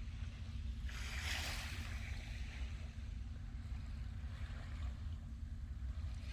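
Sea waves breaking on the beach. One wave washes in with a hiss about a second in and fades over the next couple of seconds, and the next swells near the end, over a steady low rumble.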